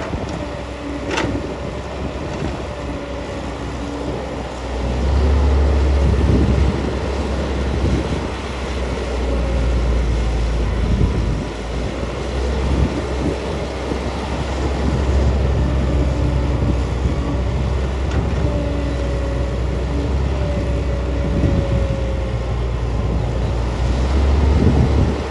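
Diesel excavator engine working, a steady low rumble that gets louder about five seconds in and then rises and falls with the load, with faint whining tones over it.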